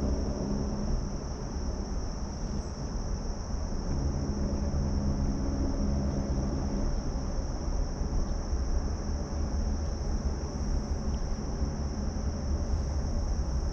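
Steady chorus of insects, a continuous high-pitched buzz that never breaks, over a low rumble of wind on the microphone.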